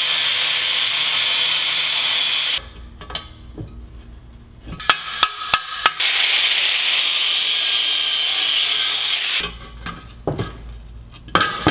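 Angle grinder cutting into a steel transmission crossmember in two stretches of several seconds each. The first stops about two and a half seconds in and the second starts about six seconds in. Between them is a quick run of sharp metallic clicks, and a few knocks follow near the end.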